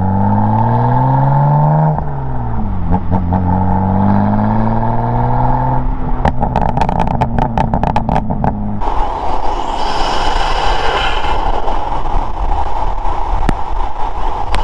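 BMW S55 twin-turbo inline-six with resonated equal-length midpipes accelerating hard, its pitch rising. It shifts up about two seconds in and pulls again. Around six seconds in, a rapid run of exhaust crackles and pops rides over a steadier note. From about nine seconds on the sound is a hissier, less tonal engine and rushing-air noise.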